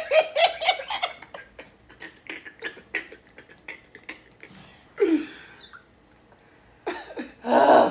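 A woman and a man laughing: a fit of quick, breathy bursts of laughter that trails off, then a louder burst near the end.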